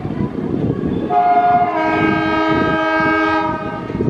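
Locomotive horn sounding one long blast from about a second in until near the end, over the steady rumble and clatter of a departing passenger train's coaches on the track.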